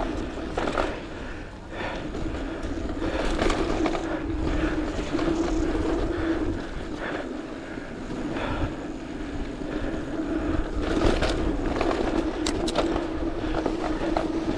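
Mountain bike rolling down a dirt trail: tyres running over packed and loose dirt, with short knocks and rattles over bumps and a steady buzz that fades in and out. Wind rumble on the microphone from the riding speed.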